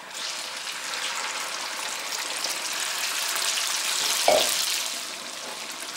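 Chopped raw chicken thigh sizzling in hot rendered chicken fat in a wok, the sizzle starting suddenly as the meat goes in. A short knock about four seconds in.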